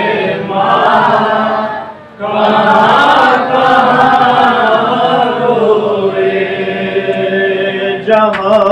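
Mourners chanting a noha refrain together in long held notes, with a brief break about two seconds in.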